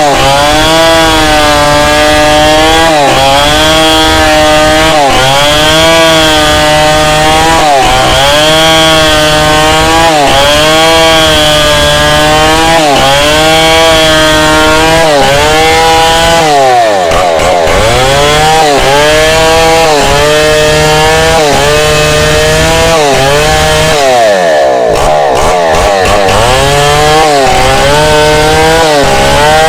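Chainsaw ripping through a log lengthwise to split it. The engine's pitch rises and falls over and over as it bogs under load, and twice sinks low, about halfway through and again near the end, before picking back up.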